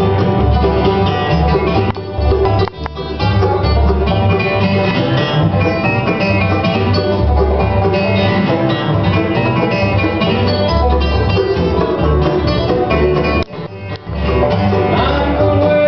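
Bluegrass band playing: banjo, mandolin, upright bass and acoustic guitar together, with the bass thumping out the low notes.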